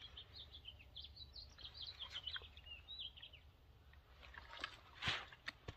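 Faint songbird chirping, quick high notes in the first three seconds or so, over a low steady outdoor rumble; a short rustle comes about five seconds in, followed by a couple of clicks.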